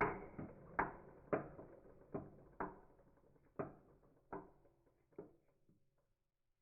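Engine connecting rod with its piston removed, knocking once per turn as the crankshaft slows to a stop. The knocks come further apart and fainter and die out about six seconds in; the uploader asks whether this is rod knock.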